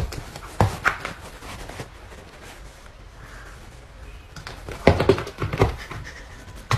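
Two cats, a Sphynx and an orange cat, sparring with paw swats, making soft thumps and scuffles. A cluster of quick knocks comes about a second in and another about five seconds in.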